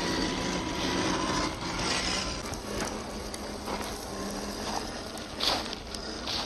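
Axial SCX10 III 1/10-scale RC crawler driving over dirt and dry leaves: a faint steady electric-motor and gear whine drifting slightly in pitch, with tyres crackling over the ground and one sharper crackle near the end.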